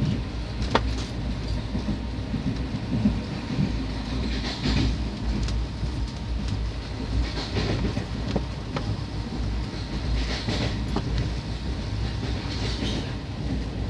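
Passenger train running along the line, heard from aboard: a steady low rumble of wheels on rails with occasional sharp clicks from the track and a hiss that swells every few seconds.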